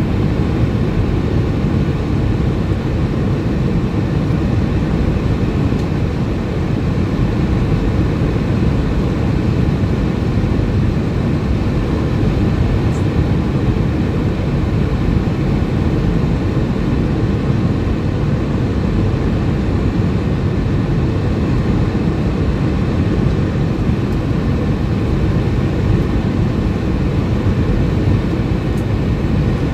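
Steady cabin noise of an Airbus A320-232 on final approach, heard inside the cabin from a seat beside the wing: an even low rumble of airflow and engines that does not change.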